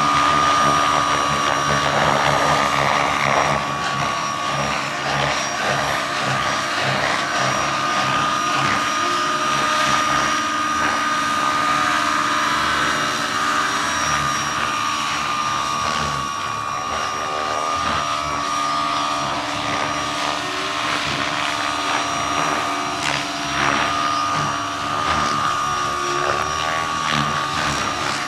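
Large radio-controlled scale model helicopter, a replica of an AgustaWestland EH101, flying: a steady high whine from its drive runs over the noise of its spinning rotors.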